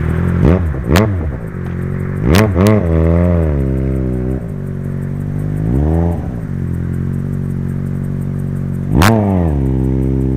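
Yamaha XJ6's 600 cc inline-four, fitted with an aftermarket stainless exhaust with a carbon-fibre tip, idling and blipped hard on the throttle. It revs up sharply several times, twice in quick pairs, and drops back to idle after each.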